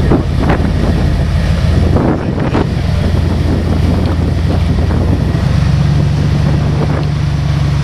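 Early Ford Bronco rock crawler's engine running at low revs as it crawls over boulders, its note shifting a little about two seconds in and again past the middle. A few short knocks in the first few seconds, with wind on the microphone.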